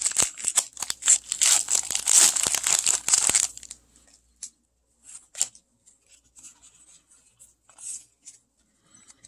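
Foil Pokémon booster pack wrapper being torn and crinkled open, a loud dense crackle lasting about three and a half seconds. After that, only a few faint clicks and rustles of the cards being handled.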